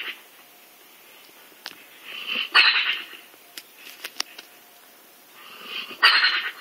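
A hound snoring: two loud, rasping snores about three and a half seconds apart, each building up from a softer breath. A few faint clicks come between them.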